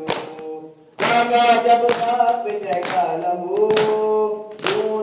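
Men's voices chanting a noha, a Shia lament, in Urdu, with rhythmic chest-beating (matam) striking about once a second. The chant breaks off briefly about half a second in and resumes at full strength a second in.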